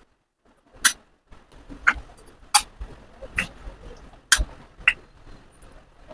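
A series of sharp clicks and knocks, six or so at irregular intervals of roughly half a second to a second.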